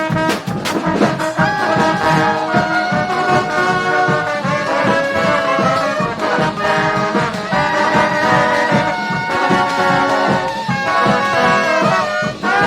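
Brass band playing a tune live, horns holding notes and moving through lines over a steady beat.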